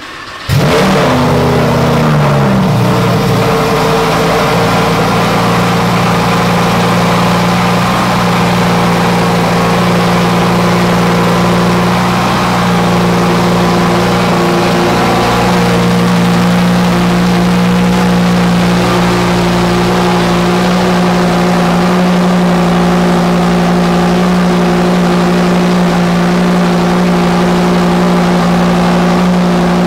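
Car engine starting up: it catches about half a second in, its revs flare and fall over the first few seconds, then it settles into a loud, steady fast idle.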